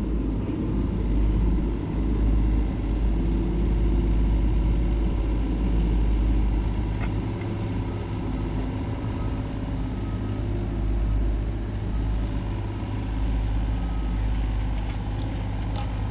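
John Deere 35G mini excavator's diesel engine running steadily.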